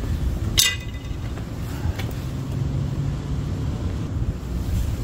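One sharp clink about half a second in and a fainter click about two seconds in, as things are handled, over a steady low rumble.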